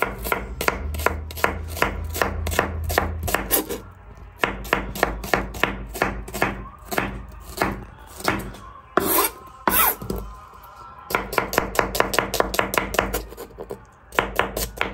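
Chef's knife slicing red onion on a plastic cutting board: quick, even knocks of the blade on the board, several a second, in runs broken by a couple of short pauses.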